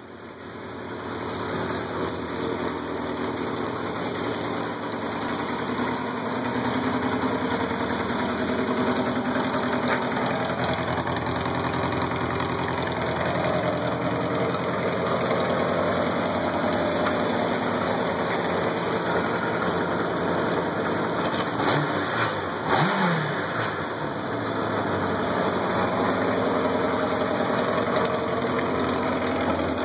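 1983 Kawasaki KZ750 LTD's air-cooled inline-four engine idling steadily through its stock exhaust, blipped once briefly a little over twenty seconds in. The headers have a small exhaust leak.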